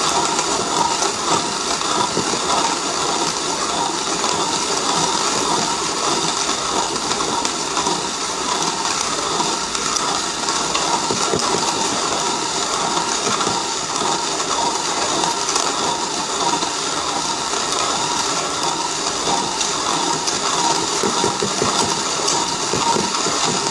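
Pharos manual conical-burr coffee grinder cranked by hand without pause, its burrs grinding coffee with a steady, continuous grinding noise.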